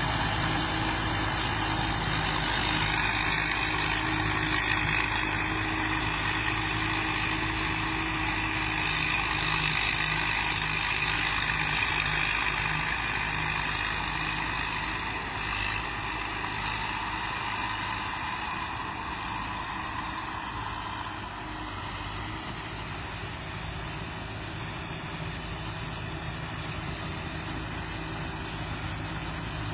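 Rice combine harvester's diesel engine and machinery running steadily, growing somewhat fainter about halfway through.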